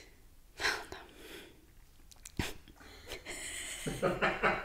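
A woman takes a breath, and a small click sounds about halfway through. Then she breaks into breathy laughter, which grows more voiced near the end.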